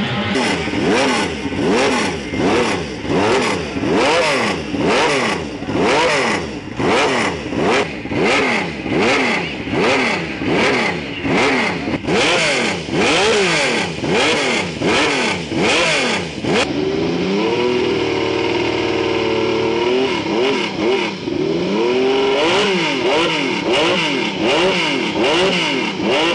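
Laverda V6 racing motorcycle's V6 engine blipped on the throttle again and again, the revs rising and falling about every two-thirds of a second. About two-thirds of the way through it is held at a steady speed for about three seconds, then the blipping resumes.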